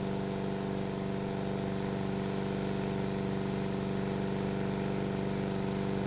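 Lawn mower's small engine running steadily with an even, unchanging tone.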